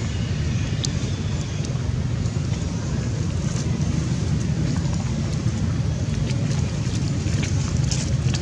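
Steady low rumbling noise, with a few faint short clicks.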